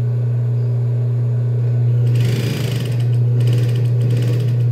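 Industrial lockstitch sewing machine sewing a seam: its motor hums steadily throughout, with short runs of rapid stitching as the fabric is fed under the needle, the loudest about two seconds in.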